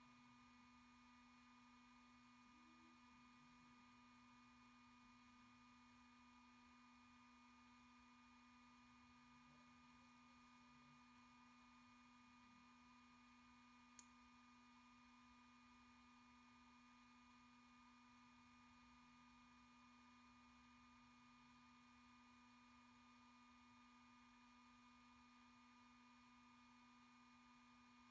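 Near silence: the turned-down sound of an Ultimaker 2GO 3D printer running, heard only as a faint steady hum of several even tones, with one faint tick about halfway through.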